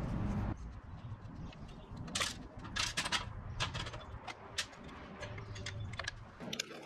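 Scattered light metallic clicks and short scrapes from hand work on a dirt bike's rear brake pedal as it is taken off.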